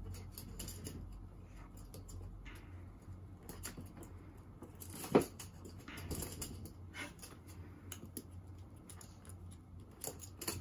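Shiba Inu puppy scrabbling on a wooden floor as it tugs at a fleece blanket, its claws making scattered light taps and pattering, with one sharp tap about five seconds in.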